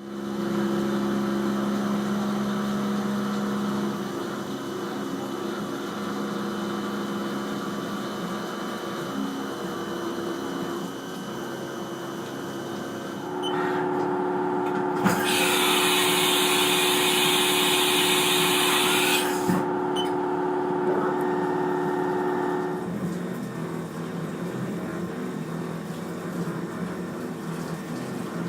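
HAAS Mini Mill CNC milling machine running a cut, its spindle and drives giving a steady whine that changes pitch a few times, higher from about halfway through until near the end. A loud hiss joins in for about four seconds just after the middle.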